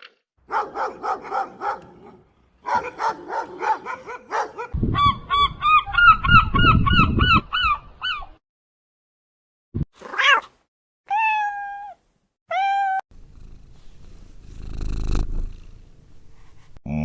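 Domestic cat calling in a series of short takes: rapid runs of quick repeated calls in the first half, then a few separate short meows that slide down in pitch near the end.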